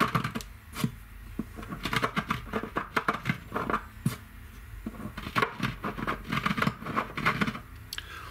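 Hand chamfering of bridge-pin holes in a wooden guitar bridge: a small hand tool scraping and clicking irregularly against the wood.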